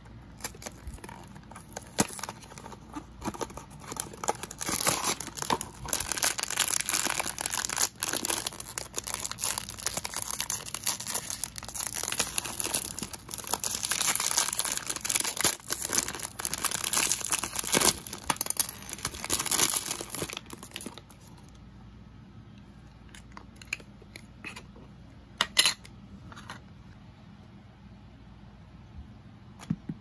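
Foil toy wrapper and plastic packaging being torn open and crinkled by hand, a dense crackling that runs for about twenty seconds. Then it goes quieter, with a few light knocks and clicks of small plastic parts.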